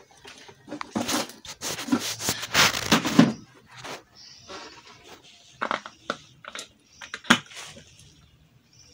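Hands working among plastic basins of larvae feed: rustling and scraping for a couple of seconds, then scattered light knocks and clicks, with one sharp click about seven seconds in.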